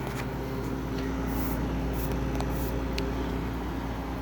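GE (Haier) AHR05LSQ1 5,100 BTU window air conditioner running: a steady low hum with a faint held tone, and a few light clicks.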